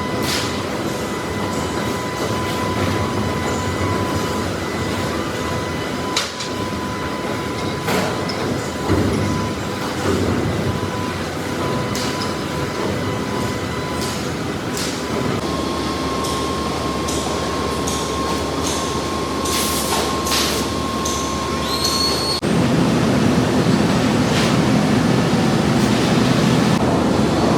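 Steel mill machinery running: a steady mechanical din with a high steady tone and scattered metallic clanks. About 22 seconds in, the sound changes abruptly to a louder, deeper rumble.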